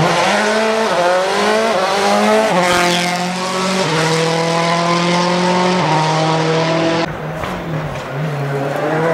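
Rally car engine at full throttle, revs climbing and snapping down through several quick upshifts, then holding a steady high note as the car passes. About seven seconds in it cuts off abruptly to a quieter, wavering engine sound.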